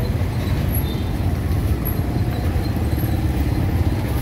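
Steady low rumble of street traffic background noise, unchanging throughout.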